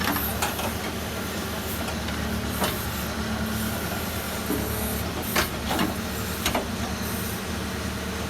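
Case 770FX backhoe loader's diesel engine running steadily while the machine works, with a few short sharp knocks, one about half a second in and three between five and seven seconds in.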